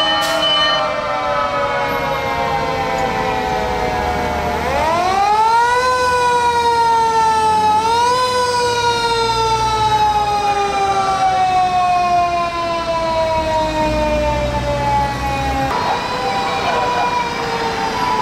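Japanese fire engine sirens wailing. A siren is winding down at first. About four and a half seconds in, another winds up steeply, rises once more briefly near eight seconds, then slowly falls in pitch until it cuts off near the end, over the low rumble of the passing trucks.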